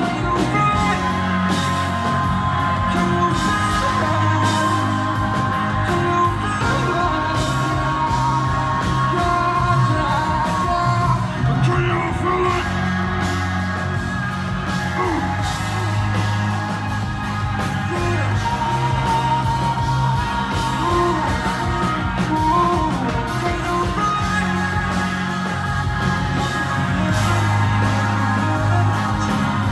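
Live hip-hop concert music played loud through a venue sound system, with vocals over a heavy bass beat.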